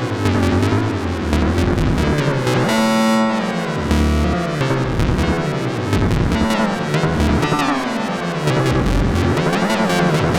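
Behringer Neutron analog synthesizer making strange effect noises: a fast rattling pulse under low pitch sweeps that swoop up and down again and again, with a held buzzy tone about three seconds in.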